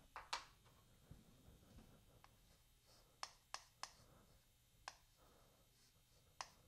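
Chalk tapping on a chalkboard in short drawing strokes: a few sharp, separate clicks, with three in quick succession about three seconds in.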